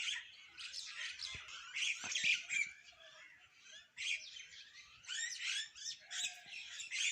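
A flock of small birds chirping and twittering in dense, overlapping bursts, easing off briefly about three seconds in before picking up again.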